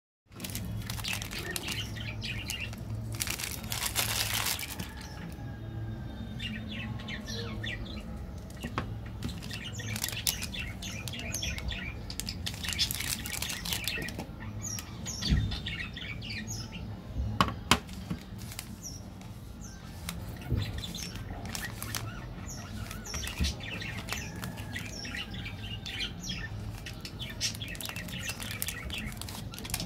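Plastic candy wrappers crinkling and tearing as chocolate bars are unwrapped by hand, with a few sharp snaps. Birds chirp in the background over a steady low hum.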